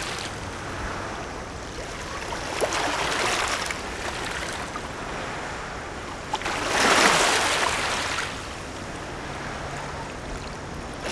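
River water washing against a rocky shoreline, swelling twice in broad surges, about two seconds in and again about seven seconds in, with a few faint clicks.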